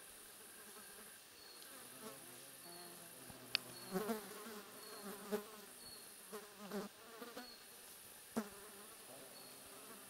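Flying insects buzzing in bursts, their pitch wavering, over a steady high insect hiss, with a short high chirp repeating about once a second. Two sharp clicks stand out, one a little before the middle and one near the end.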